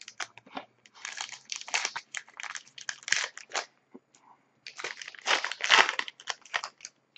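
Hockey card pack's foil wrapper being crinkled and torn open, in two stretches of crackling with a short lull about four seconds in.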